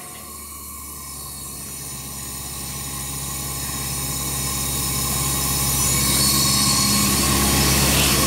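Atmos PDP 35 portable air compressor's engine running steadily, with a low hum and a hiss of air. It grows steadily louder.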